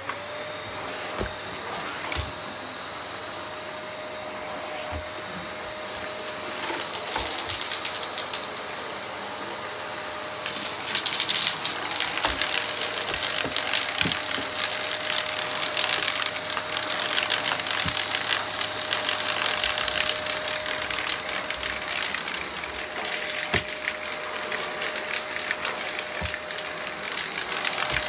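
A Deik bagless cyclonic cylinder vacuum cleaner switches on and runs with a steady whine. From about ten seconds in it gets louder and crackles as grit and dirt rattle up the hose from the floor.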